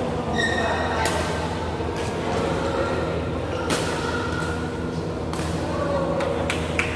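Badminton rally: sharp racket hits on the shuttlecock every couple of seconds, with a brief squeak of shoes on the court floor about half a second in. A steady low hum of the hall runs underneath.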